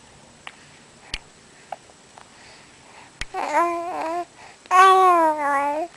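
A baby babbling: two drawn-out vowel sounds in the second half, the longer one dipping and then rising in pitch. A couple of faint clicks come before them.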